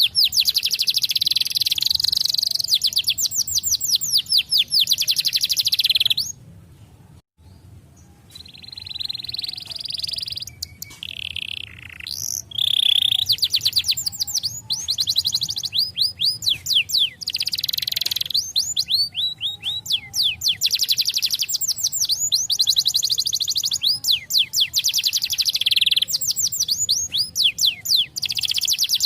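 A canary singing long, fast trills of repeated high notes. It breaks off for a couple of seconds about six seconds in, then goes on with a mix of short notes and rolling trills.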